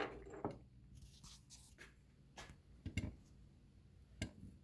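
Faint scattered clicks and taps of hand tools being handled on a workbench, with small knocks about three seconds in and near the end.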